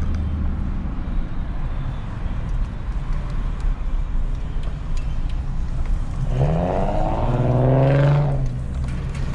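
A vehicle engine running steadily, heard from inside the cab. About six seconds in, a louder pitched sound rises in pitch and holds for about two and a half seconds.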